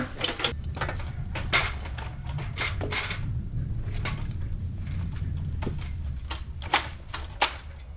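Irregular sharp knocks and clicks of building work as builders handle tools and fittings at a propped steel beam, over a low steady rumble.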